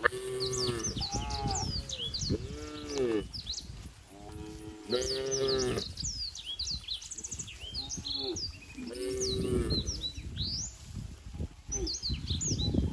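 Cows mooing: about six short calls in a row, some overlapping, with small birds chirping throughout.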